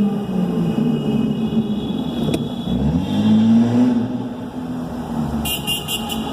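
Audi 80 Cabriolet's engine revved twice in a road tunnel through a straight-piped exhaust with glass-pack and Cherry Bomb mufflers: the note climbs, holds and drops back, then climbs again about three seconds in. Car horns sound near the end.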